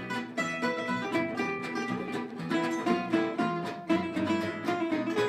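Tambura, a long-necked plucked lute, picked in quick runs of short notes.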